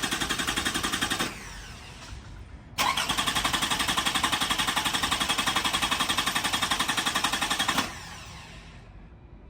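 2005 Toyota Highlander's starter cranking the engine in two attempts with a fast, even chugging rhythm. The first attempt stops about a second in, and the second starts about three seconds in and runs for about five seconds, without the engine catching. This is a crank-no-start, which the owner puts down to a failed fuel pump.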